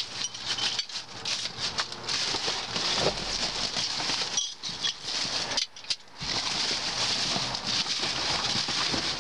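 Hands rummaging through dumpster debris: cardboard, plastic bags and loose scrap rustling, crinkling and clattering, with two short lulls around the middle.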